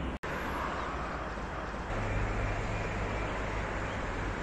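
Steady rushing outdoor background noise, with a low hum that comes in more strongly about two seconds in.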